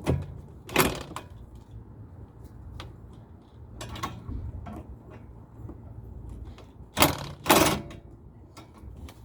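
Metal clanks and knocks from hand tools working on a car's front suspension around the sway bar link: two sharp knocks in the first second, a few light ticks, then two more loud knocks about seven seconds in, over a steady low hum.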